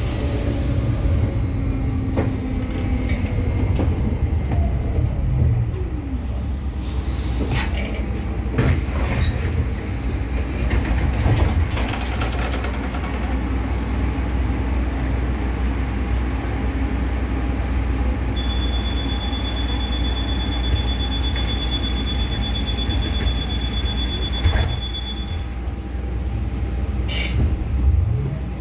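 Cabin noise of a Škoda 30Tr SOR trolleybus. The electric traction drive whines down in pitch as the bus brakes to a stop, and clunks and clicks follow as the doors work. Later a steady high electronic tone sounds for several seconds, and near the end the drive whine rises again as the bus pulls away.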